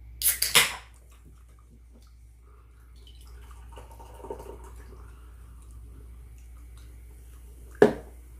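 An aluminium soda can's pull tab cracked open with a short hiss, then soda poured from it into a mug for about a second or two, and near the end the can set down on the table with a single sharp knock.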